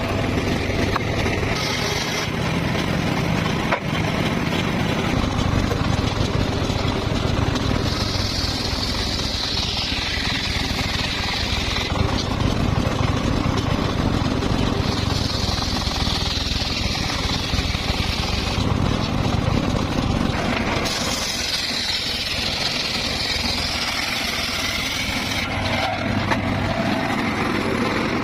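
Powered circular saw running steadily while cutting teak and mahogany wood. Three times a higher-pitched cutting hiss swells for a few seconds over the machine's steady drone as the blade goes through the timber.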